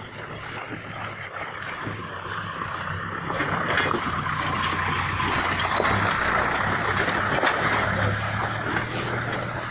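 A car and then a small truck driving past close by on a wet, flooded road: engine hum with tyres hissing and splashing through the water, loudest as the truck passes from about four seconds in and easing near the end.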